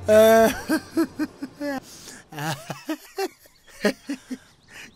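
Men's voices laughing and chuckling in short bursts, with a loud one at the start.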